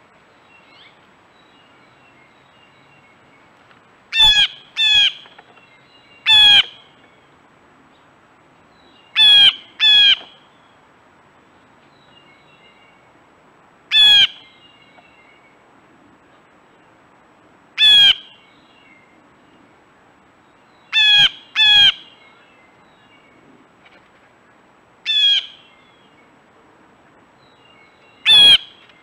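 Blue jay giving its harsh jay call, about eleven loud calls spaced a few seconds apart, several in quick pairs. Faint chirps of other birds lie underneath.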